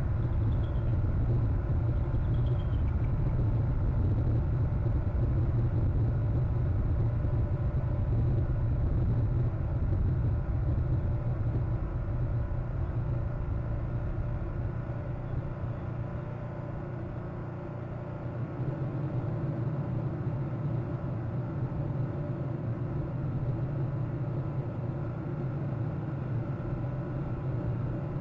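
Steady low outdoor rumble, with the level dipping for a few seconds a little past halfway.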